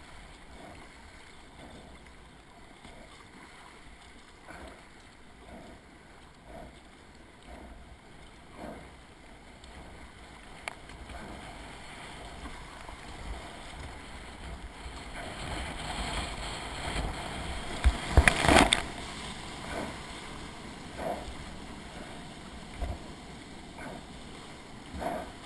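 Kayak paddle blades splashing into the river in regular strokes about once a second, over rushing water. The water noise builds as the kayak enters a white-water rapid, with a loud splash about two-thirds through, then white water rushes on.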